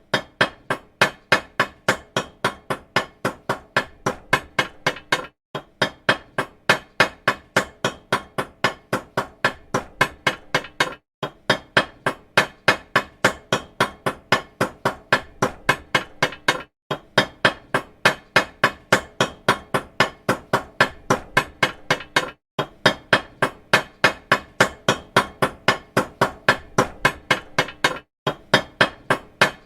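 Small metal hammer tapping steadily, several sharp strikes a second, with a brief pause every five or six seconds.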